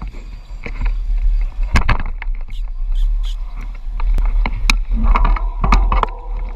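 Wind buffeting a bicycle-mounted camera's microphone as the bike rolls along, with frequent sharp clicks and rattles from the bicycle. Voices are heard in the background.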